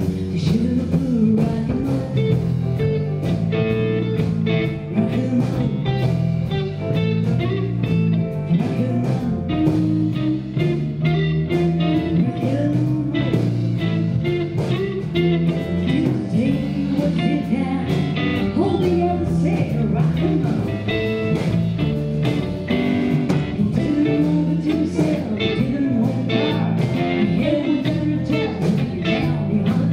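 Live blues band playing with a steady drum beat: electric guitars including a Telecaster-style guitar, bass, keyboard and drums.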